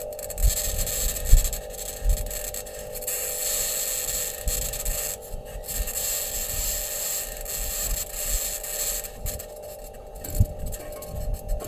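Sound recorded on Mars by the Perseverance rover's microphone: a steady scraping, grinding hiss with irregular low knocks.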